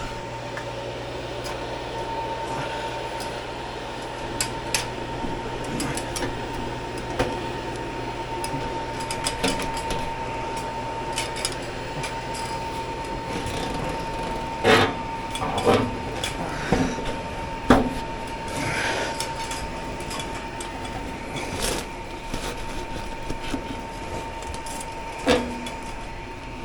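Scattered metal knocks and clunks as a blower motor assembly is handled and worked into an air handler's housing, a few louder bangs in the second half. Underneath, a steady mechanical hum with a thin constant whine.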